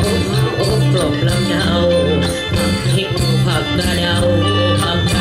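Isan folk music played by a live ensemble: held drone notes under a moving melody, with light percussion keeping a steady beat.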